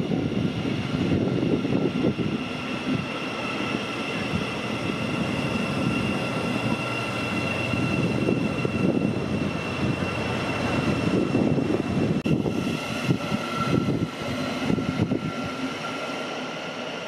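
Electric passenger trains running past on the track: a rumble of wheels on rail with a steady high whine over it.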